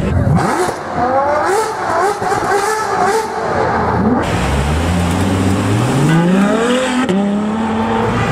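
High-performance car engines revving and accelerating hard in quick succession, the pitch climbing with each run up the revs: first a Mercedes-Benz SLS AMG's V8, then Ferrari V12s. The sound changes abruptly twice as it cuts from one car to the next.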